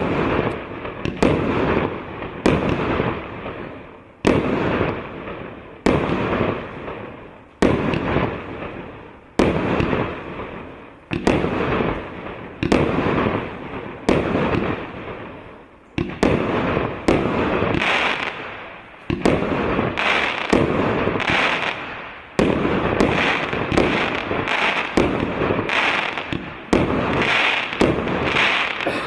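A consumer firework cake (battery) firing a series of shots, each a sharp bang followed by a fading tail. The shots come about every one and a half to two seconds at first, then speed up to roughly one a second from about halfway through.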